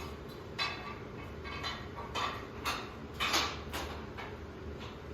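Scaffolding equipment being handled and fitted together: a series of short metallic knocks and scrapes over a steady low hum.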